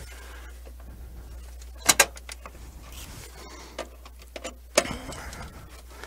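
Sharp metal clicks and clinks of a hand tool and screws being started by hand on a gas furnace's induction fan motor housing: two close together about two seconds in, a few faint ticks, and another click near the end, over a steady low hum.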